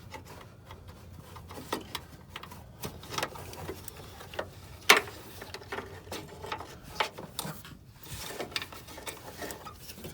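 Irregular clicks and light knocks of parts being handled and fitted in a truck, with one sharp click about five seconds in.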